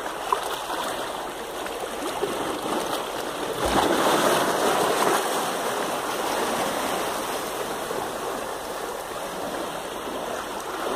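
Shallow sea water washing and splashing over shoreline rocks, a steady rush with a louder surge about four seconds in.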